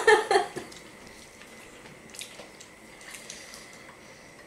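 Faint table eating sounds: soft wet chewing and mouth noises with scattered small clicks of hands handling food and a sauce packet, after a brief laugh at the start.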